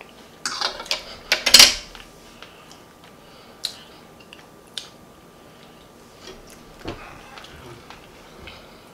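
A metal fork clattering against a plate, with the loudest clatter about a second and a half in, followed by a few scattered light clicks as the plate is handled.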